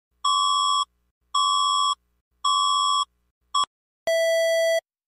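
Electronic alarm beeps from an emergency alert tone. There are three steady high beeps about a second apart, and the fourth is cut short. About four seconds in, a lower-pitched, longer beep pattern takes over.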